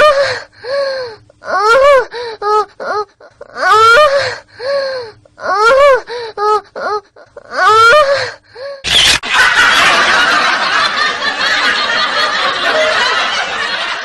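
A high-pitched voice giving a string of rising-and-falling squeals or laughs, about one a second; then, about nine seconds in, a sharp crack followed by several seconds of loud rushing noise.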